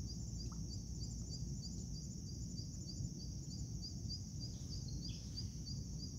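Insects chirping steadily outdoors, a high trill that pulses about four to five times a second, over a low steady rumble.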